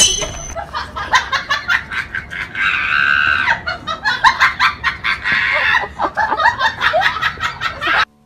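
A person laughing hard in rapid, high-pitched bursts, with a longer held squeal about three seconds in; it cuts off suddenly just before the end.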